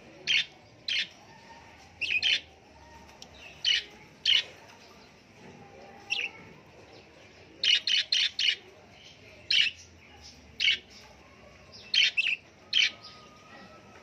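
Budgerigars chirping: short, sharp calls at irregular intervals, some single and some in quick runs of three or four.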